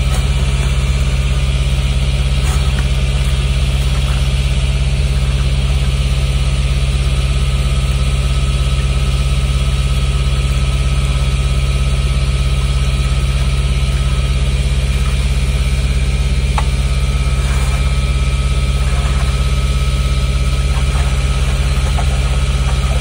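An engine idling steadily, a low constant drone that does not change, with a few faint knocks over it.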